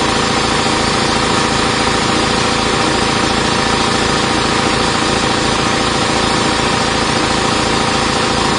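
Belt-driven air compressor running steadily: a Harbor Freight 3 hp twin-cylinder pump on a Sears Craftsman tank, turning about 840 RPM on a 3.5-inch motor pulley, a little under its intended speed.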